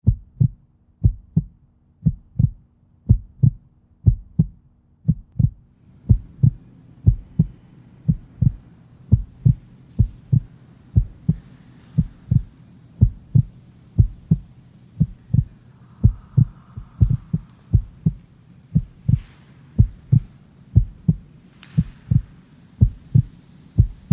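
Low, steady thumping beat in a heartbeat rhythm: pairs of soft thumps about once a second, unchanging throughout. Faint room noise joins it about six seconds in.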